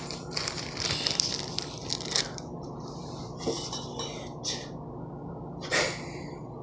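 Plastic bag of salad greens crinkling and rustling as it is handled, followed by a few short knocks of containers being set down on a kitchen counter.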